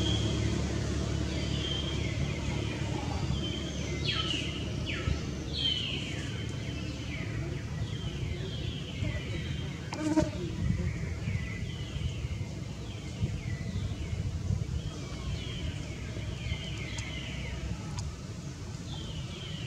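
Forest ambience: many short, high chirps, each falling in pitch, repeating about once a second over a steady low rumble, with a single sharp knock about halfway through.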